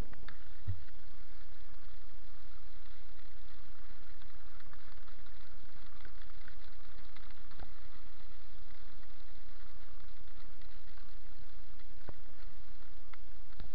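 Steady wind noise rumbling on the microphone of a moving action camera, with an even hiss over it and a few faint knocks.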